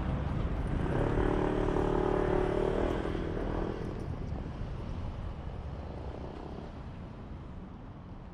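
Electric train rumbling over a level crossing and fading away. About a second in, a steady humming tone sounds over the rumble for a couple of seconds.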